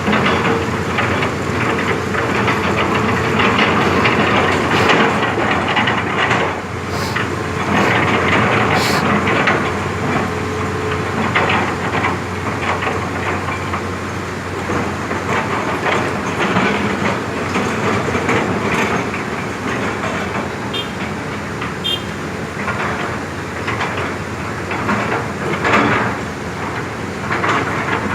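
Heavy diesel construction machinery running steadily, with metallic clanks and knocks; a few sharp clanks come about seven and nine seconds in.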